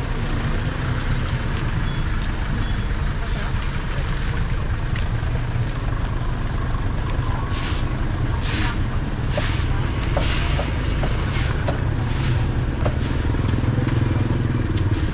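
Roadside street noise: a steady low rumble of motorbike and vehicle engines. Partway through, a run of short scratchy strokes from a broom sweeping the ground.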